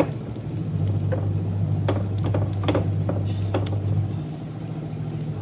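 A spatula scraping and tapping against a nonstick frying pan as batter is pressed and spread in it, in several sharp strokes. Under it runs the steady low hum of an induction cooktop, which cuts out about four seconds in.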